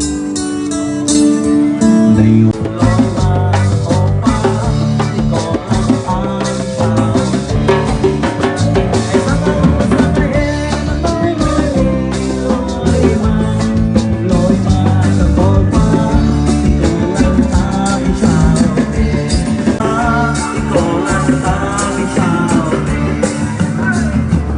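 Live band playing a rock-style song on guitars and drum kit through a PA system.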